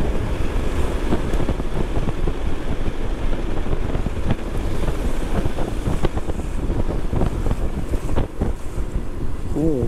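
Steady wind rush and buffeting on the microphone of a Honda PCX scooter riding at around 55 km/h, over the low running noise of the scooter.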